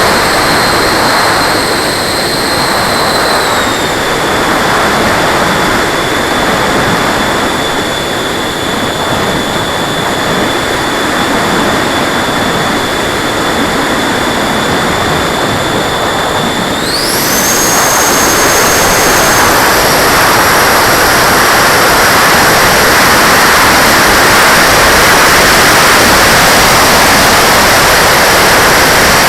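90 mm electric ducted fan of an RC jet whining over loud rushing air. Its pitch steps down slightly a few seconds in, then rises sharply about two-thirds of the way through as the throttle is opened, and eases a little soon after.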